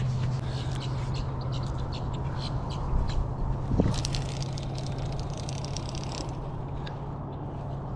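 Birds calling around the bait in many short chirps, with one short rising squawk a little before the middle, over a steady low hum.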